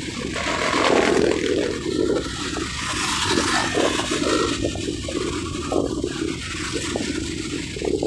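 Wind buffeting the handlebar-mounted phone's microphone on a moving bicycle: a loud rushing noise that swells and fades unevenly.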